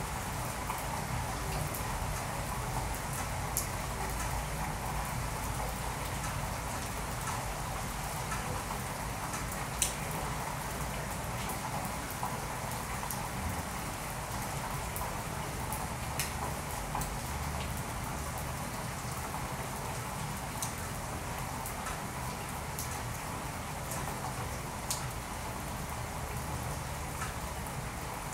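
Steady rain-like hiss with scattered sharp clicks, like drops landing; the loudest click comes about ten seconds in.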